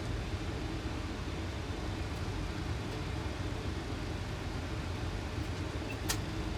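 Steady rushing cockpit noise of a Boeing 737 on final approach, airflow and engine noise with gear and flaps 30 extended, heaviest in the low rumble. A brief click about six seconds in.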